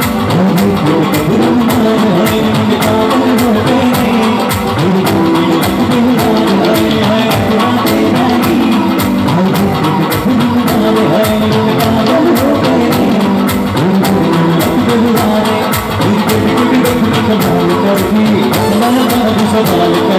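Live band music with singing over a steady beat, loud and continuous.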